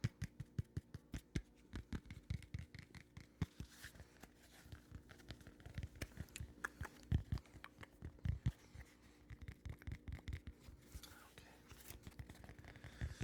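Fast, uneven ASMR tapping and light scratching close to the microphone, several soft thuds a second with sharper clicks among them.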